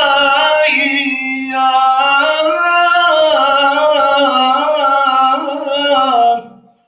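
Melodic Qur'an recitation (tilawah): a single voice holding a long, ornamented phrase, the pitch winding up and down, until it fades out about six and a half seconds in.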